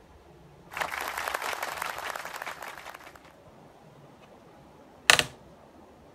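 Crackling rustle of objects being handled for about two and a half seconds, then a single sharp knock.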